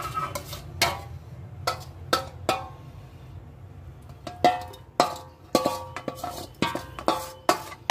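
Steel spoon knocking and scraping against a stainless-steel bowl, ringing clanks, as the leftover masala and oil are scraped into a mango-pickle jar. A few strikes in the first three seconds, then about two a second.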